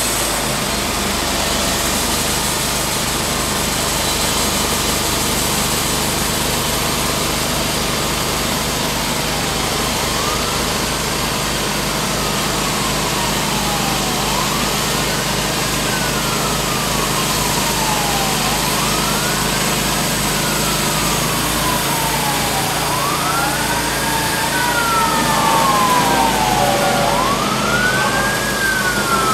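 Timberking B-20 portable band sawmill running steadily as it saws a walnut log. From about a third of the way in, an emergency-vehicle siren wails over it, rising and falling about every four seconds, with a second siren overlapping it near the end.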